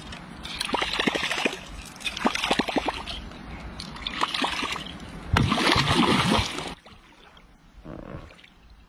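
Water splashing in short bursts as a surface lure is pulled across a river, then a loud splash about five seconds in, lasting about a second and a half, as a large fish strikes and thrashes at the surface. A smaller splash follows near the end.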